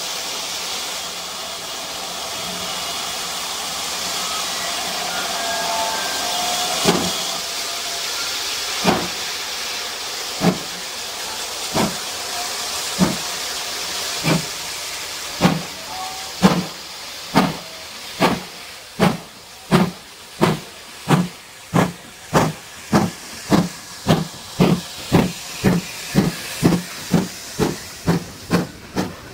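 Steam locomotive starting away: a steady hiss of steam from its open cylinder drain cocks, then exhaust beats beginning about seven seconds in, slow at first and quickening to nearly three a second as the engine gathers speed and comes closer.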